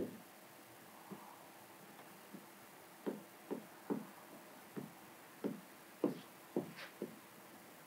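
Plastic squeegee working slip solution out from under wet paint protection film on a car's hood: a click at the start, then from about three seconds in a string of short strokes, about two a second.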